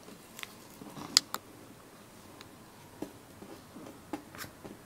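A few light, scattered clicks and taps of handling, two sharper ones a little over a second in, over quiet room tone.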